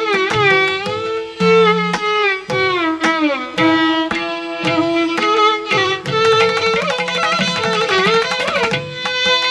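Instrumental music: plucked and bowed string instruments play a melody with frequent pitch slides over a sustained low note, with regular percussion strikes.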